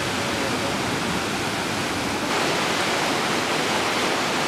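Steady rush of a shallow river pouring over rocks and small cascades, a little louder about halfway through.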